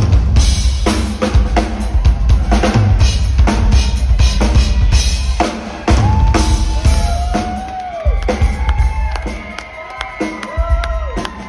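Live rock drum-kit solo: fast run of kick-drum, snare and rimshot hits with cymbals. From about halfway, the drumming thins out and quietens, and long sustained vocal notes that slide up and down in pitch sound over it.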